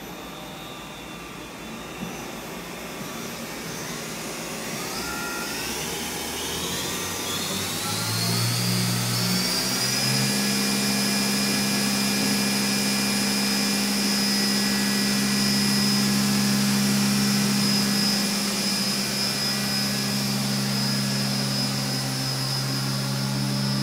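Doosan Mynx 5400 vertical machining center's 8,000 rpm spindle spinning up: a whine rises in pitch for about ten seconds. It then holds a steady high whine at top speed, close to 8,000 rpm.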